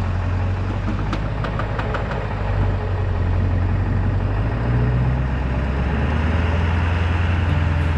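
Motor vehicle engine running with a steady low drone that shifts in pitch about halfway through, and a few light clicks about a second in.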